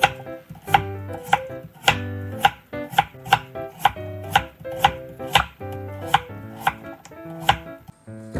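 Kitchen knife slicing a peeled Korean radish (mu) into thin slices on a wooden cutting board, about two cuts a second, over light background music. The cutting stops near the end.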